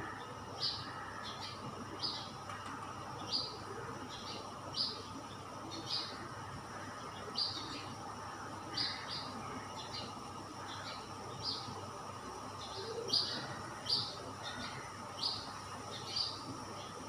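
A bird chirping: short, high chirps repeating irregularly, roughly once a second, over a steady background hiss.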